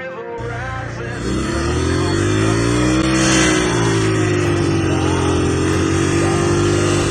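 Kentoya Trigger 125 dirt bike's single-cylinder engine revving hard while the rear wheel spins in grass. It cuts in about half a second in, climbs to a peak about three seconds in, then holds high with a slight rise and fall.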